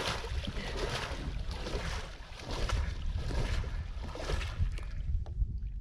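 Hands paddling and splashing the water beside a sit-on-top kayak, with wind rumbling on the microphone. The splashing thins out near the end.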